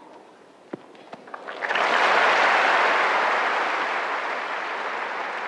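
A tennis ball struck once, then crowd applause breaks out about two seconds in, rising quickly and slowly fading.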